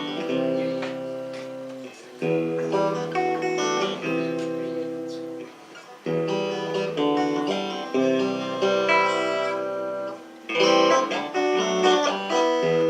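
Acoustic guitar playing a song's instrumental introduction: chords struck and left to ring, a new chord roughly every two seconds.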